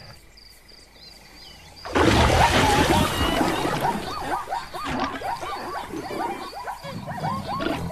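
Cartoon animal sound effects: a sudden loud splash and roar about two seconds in as a creature bursts from a waterhole, followed by many short rising-and-falling animal cries, about two a second, over faint chirping.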